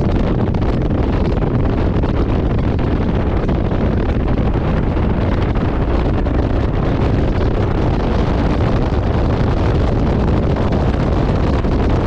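Motorcycle ridden at steady speed: wind rushes steadily over the camera's microphone, with the bike's running noise underneath.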